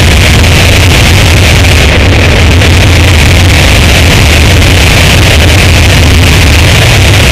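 Harsh noise music: a dense, heavily distorted wall of noise, very loud and unbroken, with a heavy low rumble under a hissing upper band.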